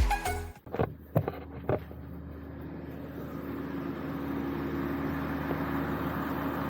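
Music cuts off about half a second in, followed by a few short knocks, then a steady motor-like drone that slowly grows louder.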